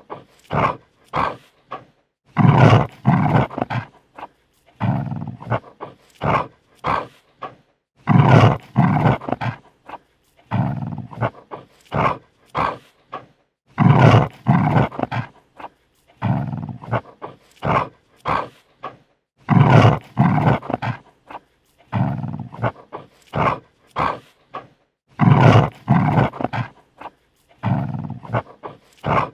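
A dog snarling and growling defensively in repeated bursts of a second or two, with short breaks between them.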